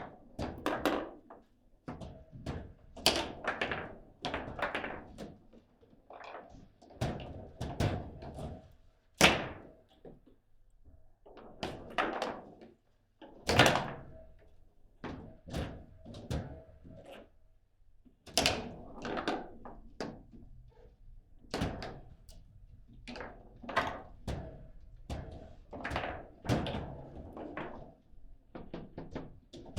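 Table football (foosball) being played: the ball struck by the rod figures and the rods worked hard, giving a run of irregular knocks and thunks, some in quick clusters and some a second or two apart.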